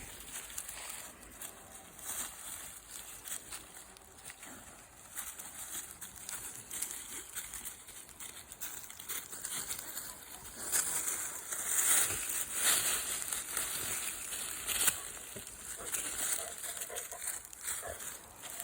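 Irregular rustling and crackling, as of steps moving through dry grass or leaves, louder from about ten to fifteen seconds in.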